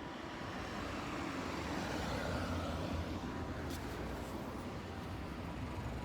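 Nissan Diesel route bus running by on the road, its diesel engine and tyre noise swelling to a peak about two and a half seconds in, then easing a little as the engine hum carries on.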